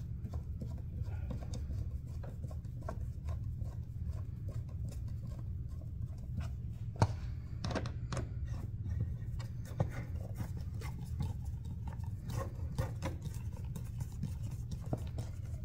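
Hand screwdriver turning screws into a plastic motorcycle airbox lid: small scattered clicks and scratches, with one sharper click about seven seconds in, over a steady low hum. The screws are being started by hand before they are snugged.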